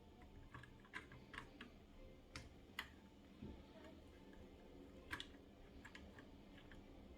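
Faint, scattered small clicks and taps of a screwdriver and a small screw as an M.2 SSD is fastened onto a motherboard.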